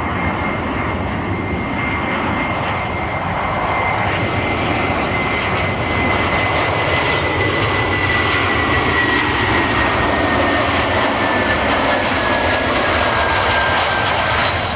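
Jet airliner passing close by on landing approach. The engines make a loud rush with a high whine that slowly falls in pitch as it goes past.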